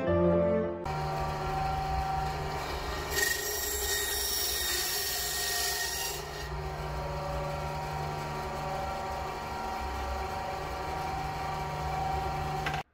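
Band saw running steadily, with a loud hissing cut through resin-filled mosaic-pin stock for about three seconds starting around three seconds in. The motor's hum carries on after the cut.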